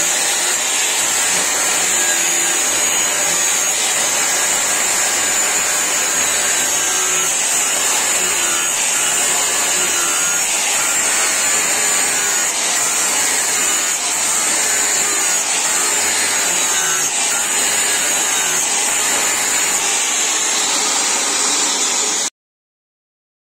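Angle grinder grinding a steel knife blade clamped in a vise: a steady high whine over a grinding hiss, stopping abruptly near the end.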